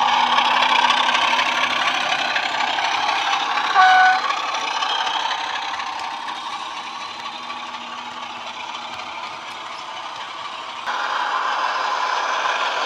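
Class 33 diesel engine sound played by a DCC sound decoder through the small speaker of a model locomotive as it runs past, with the rattle of model wheels on track. A short horn blast sounds about four seconds in. The sound changes abruptly near the end.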